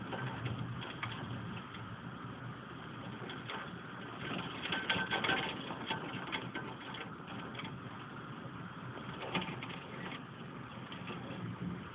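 Rain in a thunderstorm: a steady wash of noise with a flurry of sharp pattering taps about four to six seconds in and another tap near nine seconds.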